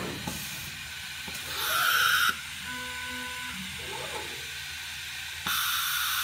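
Multicam MG Series CNC router's automatic tool changer releasing and clamping tools: two bursts of compressed-air hiss, one about two seconds in that cuts off suddenly and another starting near the end. A faint short tone comes in between.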